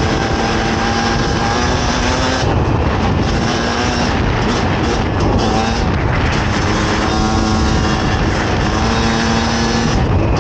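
Fantic XE 300 two-stroke enduro motorcycle engine running while riding off-road, its revs dropping and picking up again several times as the throttle is worked, over a steady rush of noise.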